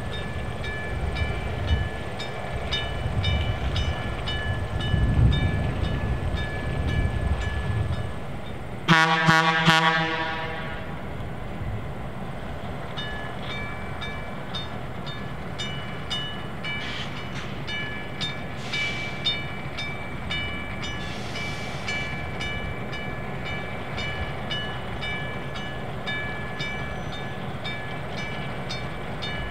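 Diesel train running past, its engine rumbling for the first eight seconds or so, with the wheels clicking steadily over the rail joints. About nine seconds in, a locomotive air horn sounds one short blast.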